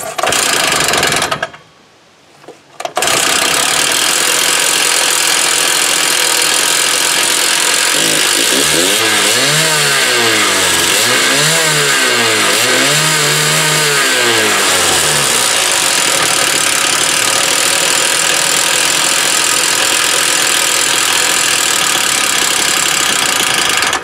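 Stihl TS 350 Super two-stroke cut-off saw being pull-started: the first pull fires only briefly, then the engine catches about three seconds in and runs steadily on its freshly rebuilt and tuned carburetor. The throttle is blipped three times in the middle, each a rise and fall in pitch, and the engine cuts off abruptly at the end, killed with the choke because the kill switch doesn't work.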